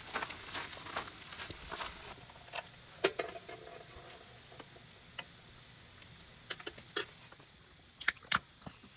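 Metal utensils clicking and scraping on a tabletop grill pan: a knife cutting grilled meat into pieces, with dense clicks for the first couple of seconds, then sparser taps of tongs, and two sharp clacks about eight seconds in.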